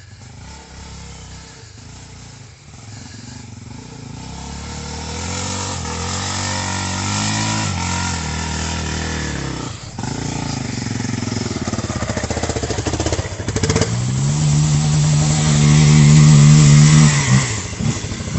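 Trail motorcycle engine getting louder as the bike rides along a dirt trail toward the listener, its revs rising and falling as the throttle is worked. It is loudest and most steady a few seconds before the end.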